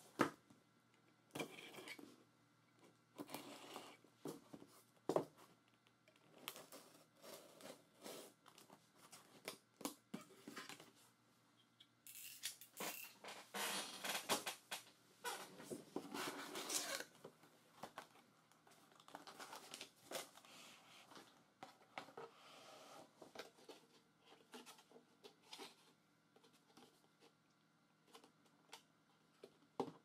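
Utility knife slicing packing tape on a cardboard shipping box, then tape being pulled away and the box flaps opened and handled. The result is irregular scrapes, rips and sharp clicks, busiest around the middle, with lighter handling noises after.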